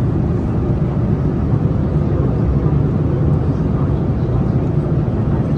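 Steady jet engine and airflow noise inside the passenger cabin of a Boeing 787-9 Dreamliner: an even, deep rumble with no change in level.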